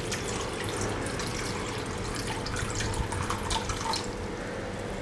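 Water pouring in a steady stream from a stainless-steel saucepan into a kadai.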